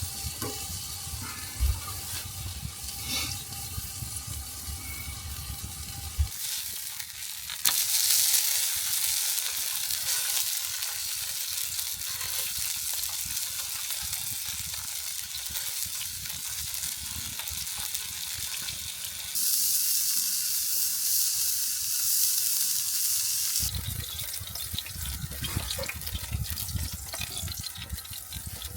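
Burgers frying on a griddle: a steady hissing sizzle, heard across several edited shots and loudest for a few seconds near the start and again around two-thirds of the way through.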